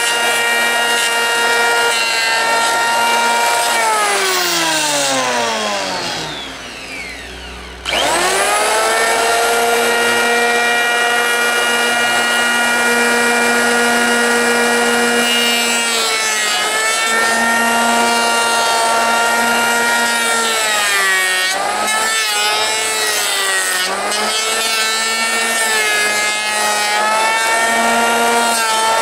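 Electric hand planer running with a steady high whine; about four seconds in its pitch falls away as the motor winds down, then about eight seconds in it starts up again, its pitch rising quickly back to full speed. Its pitch then dips briefly several times as the cutter bites into the wood.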